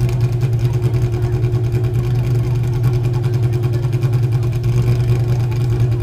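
A car engine idling steadily with a low, even throb.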